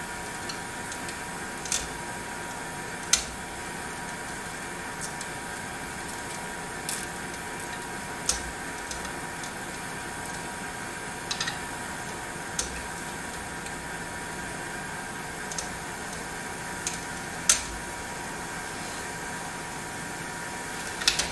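Scattered short clicks and taps from handling the electrical wires and wire connectors while wiring up a smoke detector, about ten over the stretch at irregular intervals, over a steady background hum.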